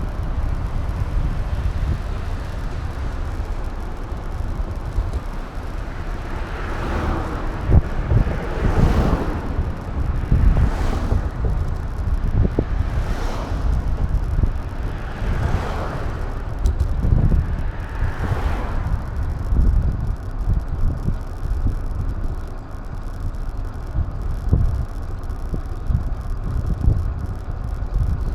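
Wind buffeting an action camera's microphone while riding, as a steady low rumble. About six swells of rushing noise rise and fall in the middle of the stretch, one every two seconds or so.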